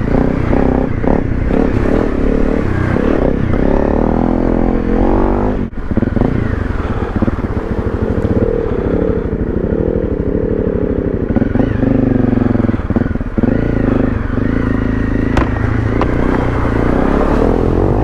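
Honda CRF250 Rally's single-cylinder engine being ridden over a slippery, muddy track, its revs rising and falling with the throttle, with a brief drop about six seconds in.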